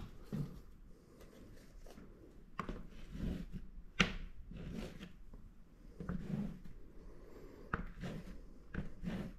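A clear plastic straight edge handled and pressed against a painting on paper: irregular soft knocks, taps and rubbing, with one sharp click about four seconds in.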